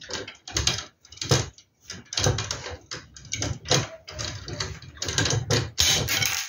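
Pliers twisting a wire tie tight around wooden slats: a run of irregular clicks, scrapes and knocks of metal on wire and wood, with a brief harsher scrape near the end.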